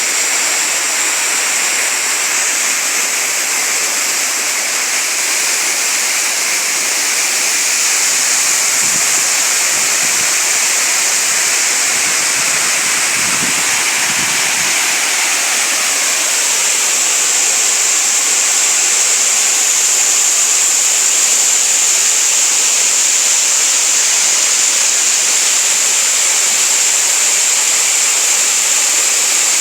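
Waterfall and stream water cascading and rushing, a steady, dense hiss of falling and flowing water.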